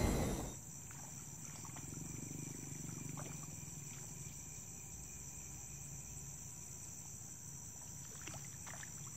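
Quiet outdoor ambience at the water's edge: a steady high insect chorus over a low hum, with a few faint clicks. A loud noise dies away in the first half second.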